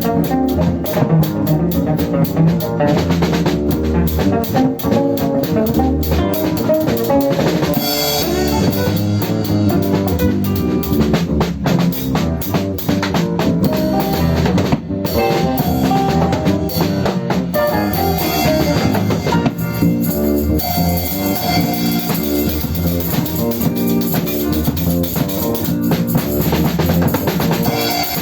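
Band music: a drum kit keeping a steady beat under guitar and bass guitar.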